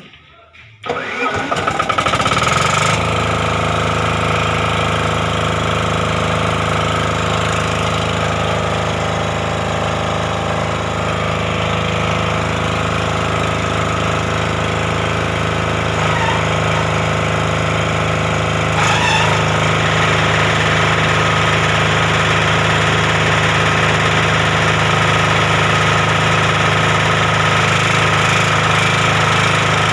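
Silent-type diesel generator set with an 1105 diesel engine starting about a second in, then running steadily. It gets a little louder about two-thirds of the way through as electrical load comes on.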